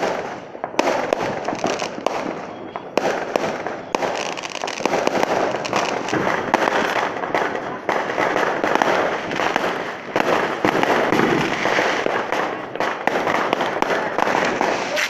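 Aerial fireworks bursting in a continuous barrage of overlapping bangs and crackling, opening with a sharp bang.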